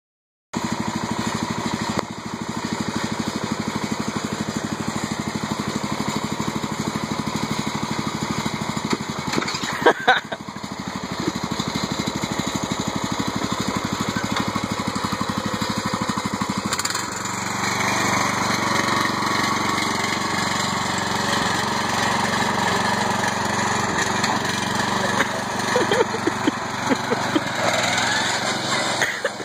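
A racing lawnmower's small engine running steadily. A bit over halfway through the note changes and fills out as the mower drives off under load, with a couple of sharp knocks about a third of the way in.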